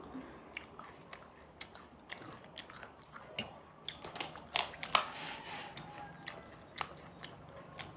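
Close-up mouth sounds of eating pani puri: chewing with scattered sharp crunches and clicks of the crisp puri shells, thickest about halfway through.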